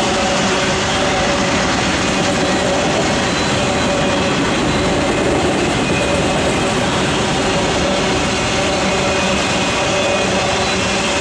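Union Pacific autorack freight cars rolling past at track speed: steady wheel-on-rail noise with a faint steady tone running through it.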